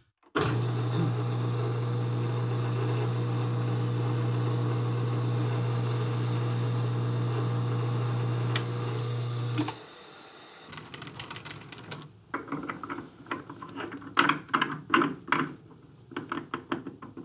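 Metal lathe running slowly with a steady hum while a single-point tool cuts an internal thread in a brass part. The hum stops suddenly about ten seconds in, followed by light clicks and taps of brass parts handled as a fitting is screwed onto the new thread by hand.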